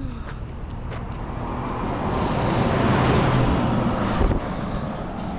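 A road vehicle passing close by, its engine and tyre noise swelling to a peak midway and then fading.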